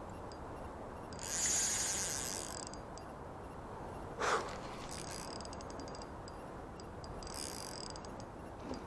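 Fishing reel clicking fast in three bursts while a hooked salmon is fought. About four seconds in there is one short squeak.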